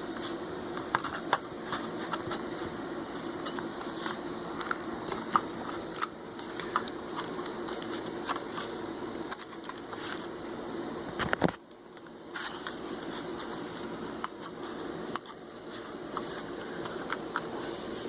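Plastic clicks and scrapes of a circuit board being worked back into a car's body control module housing, with a loud sharp click about eleven and a half seconds in, over a steady low hum.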